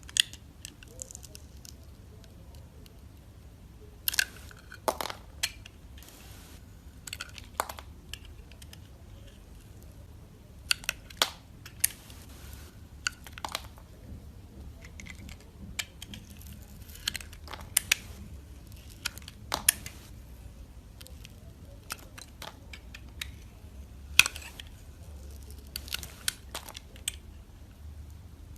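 Dry soap being cut, with irregular crisp cracks and crunches and quieter scraping between them.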